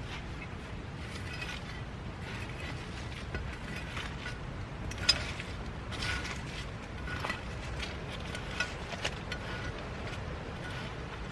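Scattered light clicks and clinks, a few ringing briefly, with the sharpest about five seconds in, over a steady low rumble.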